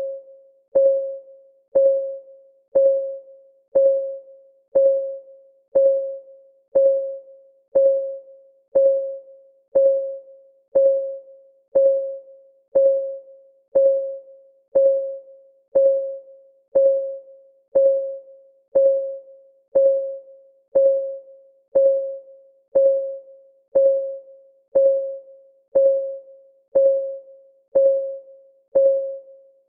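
Countdown-timer clock ticking sound: a short, pitched tick once a second, each one dying away quickly.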